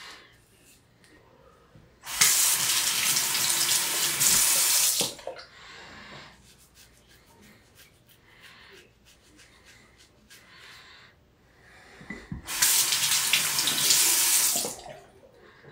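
Sink tap running twice, each time for about three seconds, as water for rinsing a safety razor during a wet shave. Between the two runs, faint short scrapes of the razor on lathered stubble.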